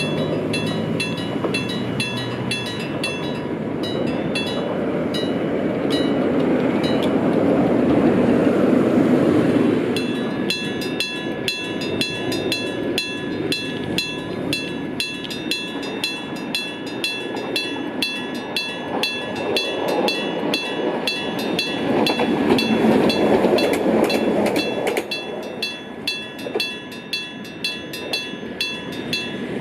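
AC electric-bell level-crossing warning bell ringing a steady "karan karan", a little under two strikes a second, over the rumble of a passing tram, which fades near the end and leaves the bell standing out.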